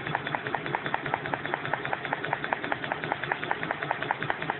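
Cough assist machine running with a steady, rapid ticking pulse, about nine ticks a second.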